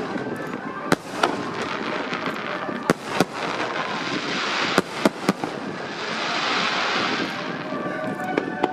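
Aerial fireworks shells bursting, with sharp bangs going off singly and in pairs every second or two. A long crackling hiss swells and fades about two-thirds of the way through.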